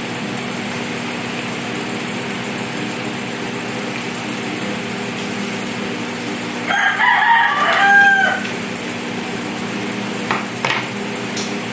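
A rooster crowing once, for about two seconds, starting just past halfway. Under it runs a steady low hum, with a couple of faint clicks near the end.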